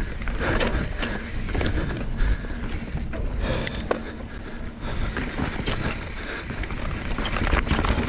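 Mountain bike ridden fast down a dirt and rock trail: wind rushing over the microphone and tyres rolling over the ground, with frequent clatters and knocks from the bike over bumps.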